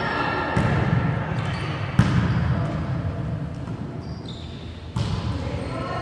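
Volleyball being struck during a rally, three sharp hits that ring in the large gym hall, the loudest about two seconds in.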